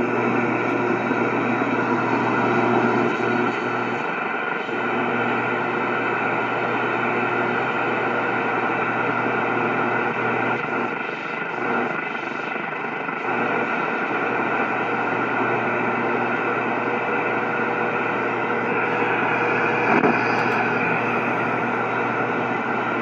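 Zenith Royal 1000 Trans-Oceanic transistor shortwave radio playing a steady hiss of static, with several steady whistling tones running through it, while tuned to an upper shortwave band where no station is coming in.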